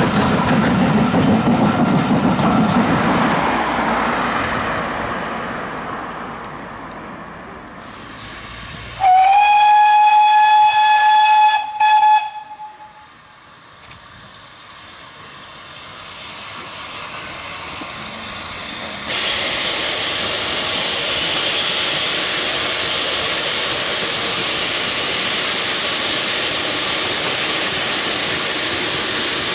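A steam train passing and fading away. Then a steam locomotive's whistle: one long blast that slides up slightly as it starts, followed by a short second toot. A steady loud hiss of steam sets in suddenly later and holds as the locomotive draws near.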